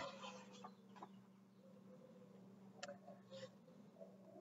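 Near silence: a faint steady low hum, with a few faint brief sounds about three seconds in.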